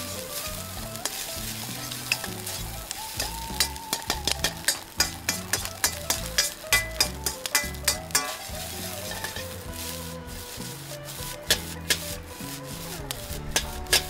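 Fried rice sizzling in a wok as it is stir-fried, with sharp metal clanks of the cooking utensil striking the wok, a quick run of them, about two or three a second, through the middle and a few more near the end.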